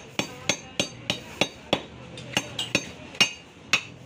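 A butcher's cleaver chopping into a cow's leg bone on a wooden chopping block: a quick run of about a dozen sharp strikes, roughly three a second, some with a brief metallic ring.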